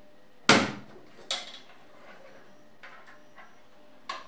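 Knocks and clatter as a desktop PC's power-supply cables and connectors are handled and bump against the metal case. There is one loud knock about half a second in, a second knock just after one second, and two fainter ones later.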